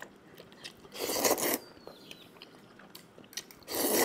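A person slurping a mouthful of black instant noodles twice, each slurp about half a second long, with light clicks of metal chopsticks against a steel bowl in between.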